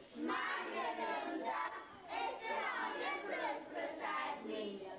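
A group of many voices at once, children's among them, overlapping in a dense mass of sound.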